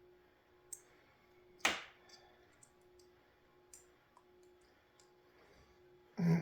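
A few small clicks and one louder knock about a second and a half in, from small parts being handled while the heater's fuse and wiring are checked, over a faint steady hum.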